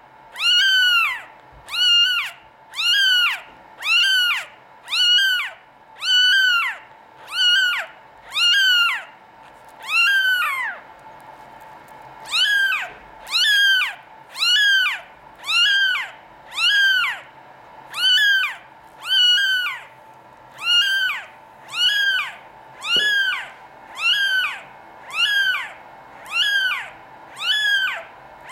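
Newborn Norwegian Forest Cat kitten mewing over and over: high-pitched cries about one and a half a second, each dropping in pitch at its end, with one short break about eleven seconds in.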